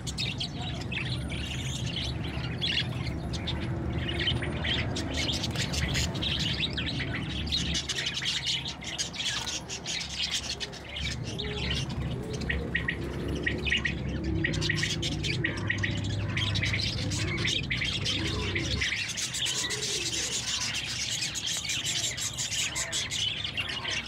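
A flock of budgerigars chattering: many rapid, overlapping high chirps and warbles, over a low steady background hum.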